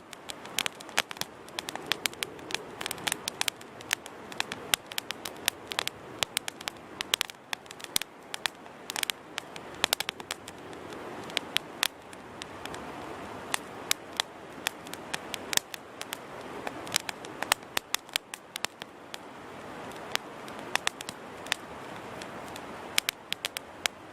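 Wood campfire burning, with a steady rushing hiss of flames and frequent sharp crackles and pops from the burning wood, several a second.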